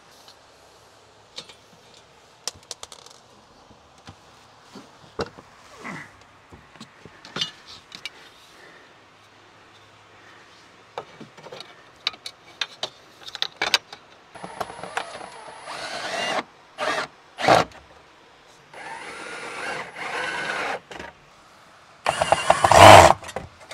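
A power drill running in several short bursts, the last and loudest near the end, between scattered knocks and clicks of handling.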